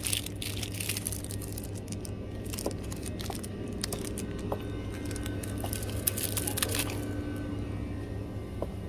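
Crinkling of a cellophane-wrapped sticker packet being handled and rattling of a shopping cart, over a steady low hum. The clicks and crackles come in clusters near the start and again about five to seven seconds in.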